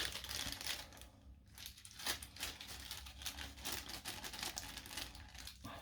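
Plastic crinkling and rustling in the hands in short, uneven spells, with small clicks and scrapes, as loose battery cables are wrapped to insulate them.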